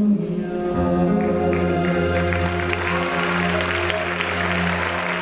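A live band with keyboards, guitars and drums holds a long sustained chord as a song closes. Audience applause rises over it from about a second and a half in.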